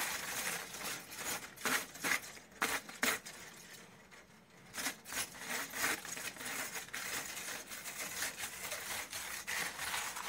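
Aluminium foil crinkling and rustling under hands rubbing oil over a crumpled foil sheet, in short irregular bursts with a brief lull about four seconds in.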